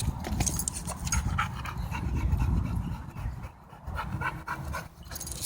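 Dogs play-fighting: a low, rapidly pulsing growl for the first few seconds, with panting, then quieter before it picks up again near the end.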